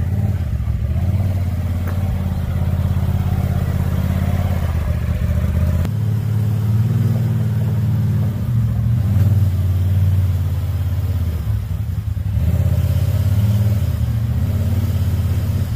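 2021 Polaris RZR XP Turbo's turbocharged twin-cylinder engine running at low speed as the side-by-side creeps forward, its note rising and falling a few times with light throttle.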